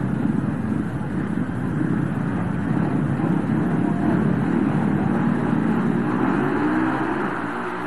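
Several speedway motorcycles' 500 cc single-cylinder engines running together at the starting tapes, blended into one dense engine noise, with revs rising and falling as the riders wait for the start.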